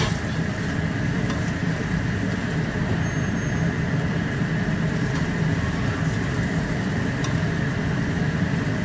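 Steady rushing noise of stir-frying: green vegetables sizzling in a wok on a gas hob, with a steady low drone under it and a few light clicks of the spatula against the pan.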